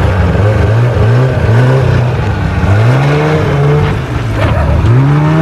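Arctic Cat Panther 570 two-stroke snowmobile engine revving up and down about four times as the throttle is blipped to swing the sled's rear end around in the snow.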